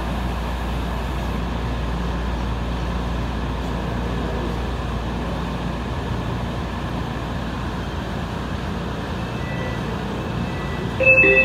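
Steady hum inside a stationary AirTrain JFK car waiting at the platform. Near the end an electronic door chime sounds, signalling that the doors are about to close.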